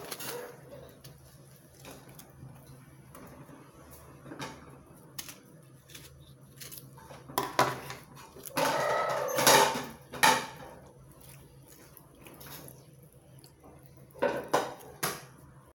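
Kitchen knife cutting an orange and knocking against a wooden cutting board and a plastic bowl: scattered clicks and clatters, with a louder stretch of handling noise about nine seconds in and two knocks near the end.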